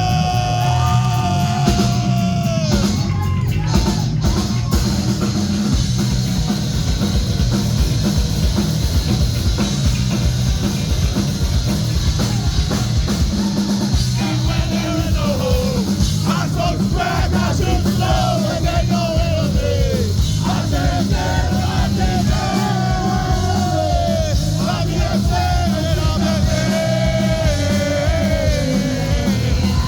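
Punk rock band playing live and loud: drums, distorted guitars and bass, with sung and shouted vocals. The vocals drop out a few seconds in and come back about halfway through.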